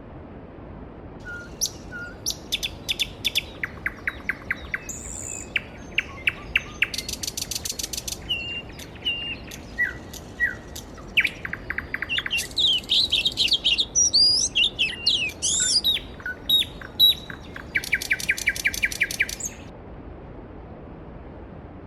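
Songbirds singing over the steady rush of a mountain stream: a run of rapid trills and varied warbled phrases that falls away near the end, leaving only the flowing water.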